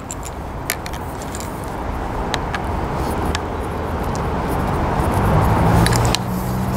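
Road traffic noise swelling over several seconds as a vehicle passes, with a steady engine hum coming in over the last couple of seconds. Scattered small clicks come from a travel tripod's removable monopod leg being handled and fitted back onto the tripod.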